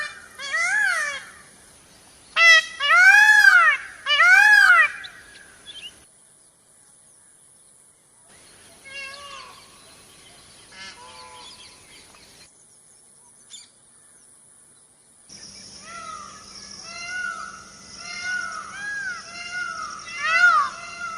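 Indian peafowl calling, with loud repeated calls that rise and fall in pitch. There are three close together in the first five seconds and a few fainter ones in the middle. Near the end comes a quick run of many calls over a steady hiss.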